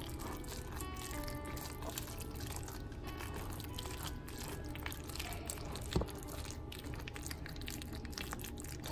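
Metal spoon stirring and scooping thick baked macaroni and cheese in a foil pan: soft, wet, sticky squelches with small clicks, one sharper click about six seconds in. Faint music plays underneath.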